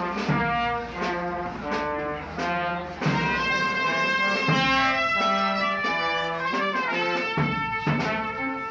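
Brass band music: several horns holding and changing notes of a slow tune over a regular beat.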